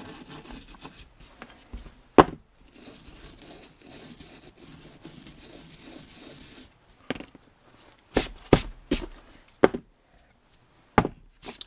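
A hand brush scrubbing corrosion out of a snowmobile bogey wheel, a steady scratchy rasping for the first several seconds. It is followed by a handful of sharp knocks as the wheel and tools are handled.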